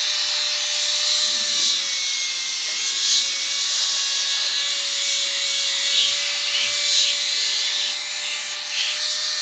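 Corded electric drill spinning a polishing pad at high speed against the hardwood back of a chair: a steady motor whine under the hiss of the pad rubbing the wood. This is high-speed polishing of furniture wood after deep sanding.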